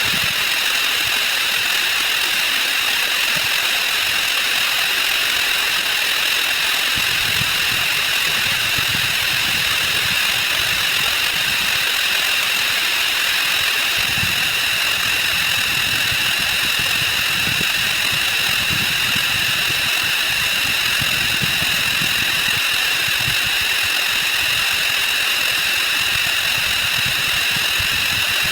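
Counting sound effects sped up 256 times, blurred into one steady, harsh buzzing hiss. A faint, flickering low rumble joins it about seven seconds in.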